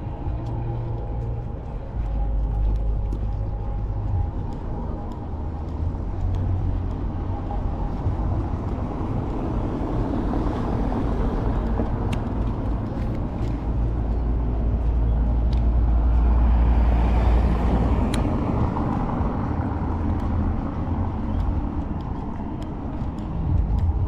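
Motor traffic on a city street: engines running with a deep rumble, and a vehicle passing close that is loudest about two-thirds of the way through.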